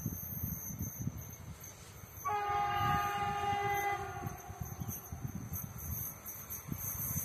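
Horn of an approaching train sounding one long blast of about two seconds, starting a couple of seconds in.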